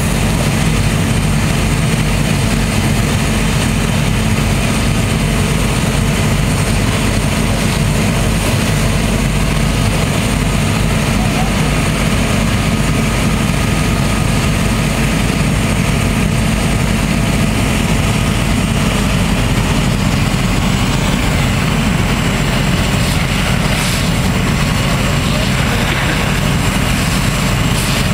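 Fire engine's diesel engine running steadily while it pumps water to the hose lines, a constant drone with a steady hum.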